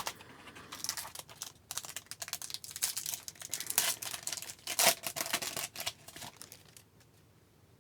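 Trading-card pack wrapper crinkling and tearing open, in a run of irregular rustles that stops about seven seconds in.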